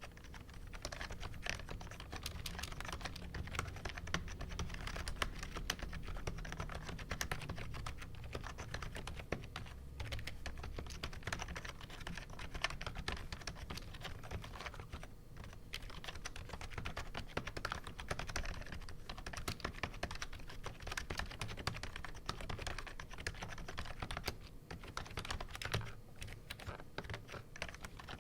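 Continuous fast typing on an AppleDesign Keyboard with Alps slider-over-dome switches and PBT dye-sub keycaps: a dense stream of key clicks, with a few short pauses.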